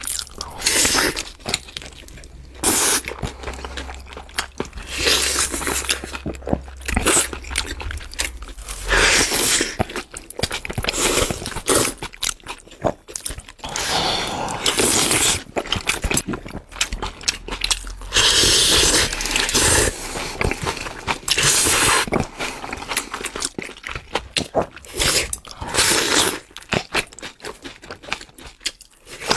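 Mukbang eating sounds: crunchy bites and wet chewing of food, coming in irregular loud bursts with short gaps between them.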